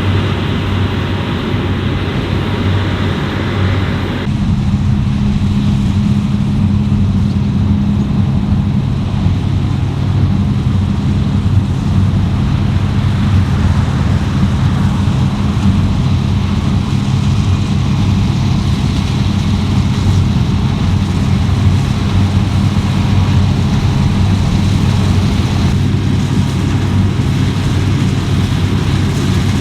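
Fendt Ideal 10T combine harvester running steadily while harvesting wheat: a deep, even engine drone with machinery noise over it. The sound shifts abruptly about four seconds in and again near the end.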